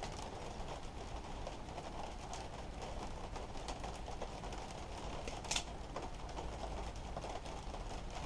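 Faint handling noise and small clicks of wire strippers working on the inner wires of a mains cord, with one sharper click about five and a half seconds in.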